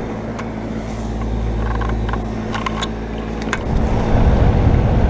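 Nordyne heat pump outdoor unit running: a steady compressor hum under the fan's whoosh. About three and a half seconds in, a coarser low rumble grows louder.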